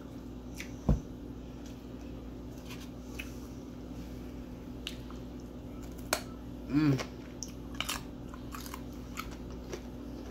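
Close-miked chewing and crunching of raw carrot sticks with ranch: scattered crisp crunches, a loud thump about a second in, and a short hummed 'mm' about two-thirds of the way through.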